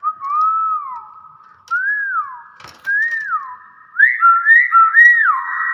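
Hill myna whistling four short notes that each rise and then fall, the last a quicker run of several notes.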